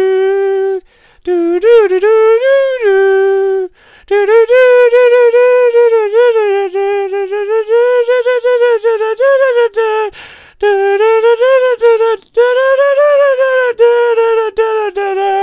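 A lone voice humming a wordless tune in a high register as homemade credits music. The notes slide and wobble in pitch, and the phrases are broken by short pauses.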